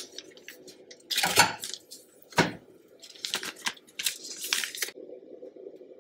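A paper butter wrapper crinkling and tearing as a stick of butter is peeled off into a small metal saucepan, with a sharp knock against the pan about two and a half seconds in. The crinkling comes in irregular clusters, loudest a little after a second in.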